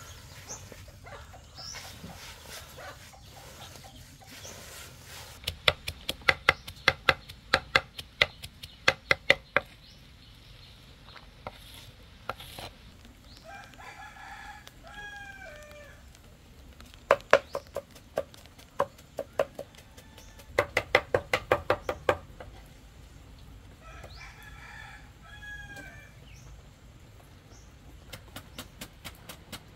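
A heavy knife chopping pale plant stalks on a wooden board, in runs of quick strokes of about four a second. A rooster crows twice, near the middle and again about 25 seconds in.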